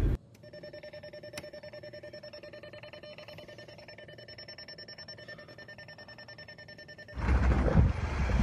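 A car's electronic warning chime beeping rapidly and evenly. Near the end it is cut off by a sudden, louder rumble of vehicle and wind noise.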